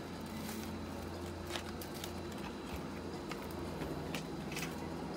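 Scattered light clicks and taps of hard plastic gas-mask parts being handled, over a steady low hum.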